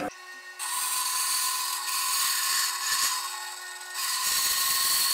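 JIB BAS 312 bandsaw switched on and running, its blade ripping a thin strip off a wooden board with a steady hiss over the motor's hum. The cutting noise eases briefly just before four seconds in, then picks up again.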